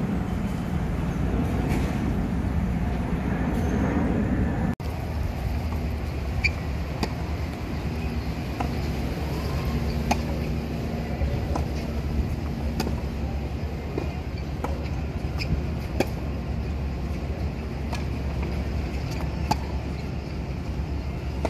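Tennis rally on a hard court: sharp pops of the ball off the rackets and court, roughly once a second, over a steady low rumble. For the first few seconds only the rumble is heard, louder, before an abrupt break.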